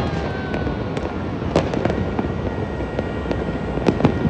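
Many fireworks and firecrackers going off at once in a dense, continuous crackle, with a few louder bangs about a second and a half in and twice near the end.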